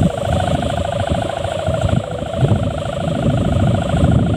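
Dompeng-style sendaren, the bowed hummer on a large Javanese kite, droning in the wind. It gives a steady two-tone hum that flutters rapidly, over a gusty low rumble.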